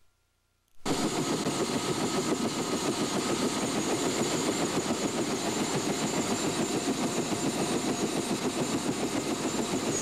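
UH-1 Huey helicopter running on the ground, its turbine and rotor making a steady loud noise with a fast, even flutter, heard at the open cabin. It starts abruptly about a second in, after a brief silence.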